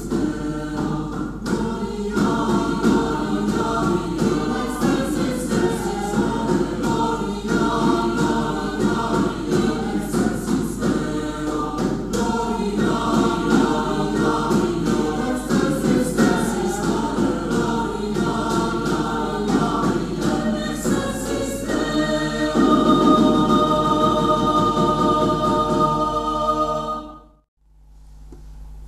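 Mixed choir of women's and men's voices singing in a church. About 22 seconds in it settles on a long held chord that fades away. After a brief silent gap near the end, another choir starts singing.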